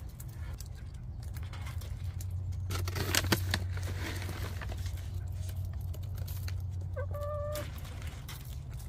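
Hens pecking at feed pellets with scattered sharp pecking clicks, and one short, steady-pitched hen call about seven seconds in, over a steady low hum.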